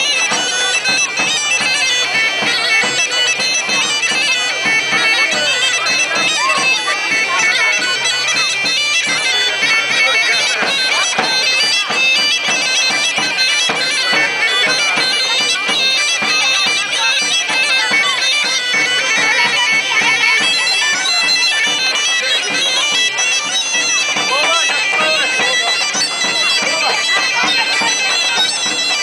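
Thracian gaida (bagpipe) playing a dance tune over a steady drone.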